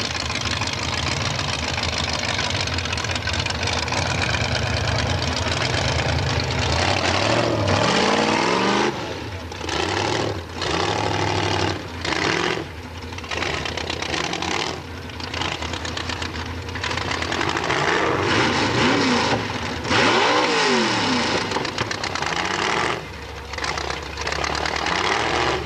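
Formula Offroad car's engine revving hard at full throttle, its pitch rising and falling. From about nine seconds in the throttle is lifted again and again, cutting the sound in short bursts.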